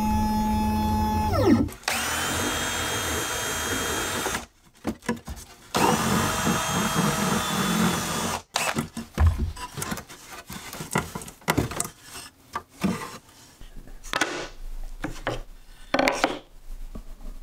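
Shapeoko CNC router's spindle running steadily, then winding down with a falling whine. A Makita cordless drill then runs in two bursts of a couple of seconds each, followed by scattered knocks and clicks.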